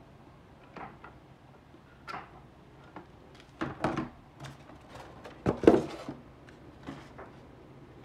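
Handling noise from a foam RC model airplane being moved and turned over on a table and into its polystyrene packaging: scattered light knocks, rubs and scrapes, with a cluster of louder knocks between about three and a half and six seconds in, the loudest just before six seconds.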